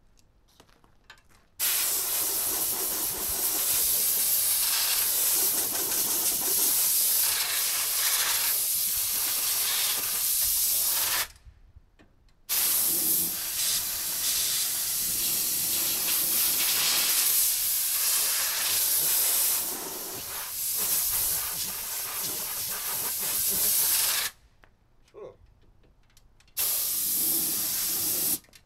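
Compressed-air blow gun hissing as it blasts dust out of a mini excavator's radiator cores: one blast of about ten seconds, a short pause, a second of about twelve seconds, then a brief burst near the end.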